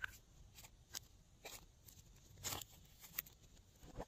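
Gold glitter flower cutouts being picked off glossy slime and gathered in the hand: about half a dozen faint, irregular ticks and crackles.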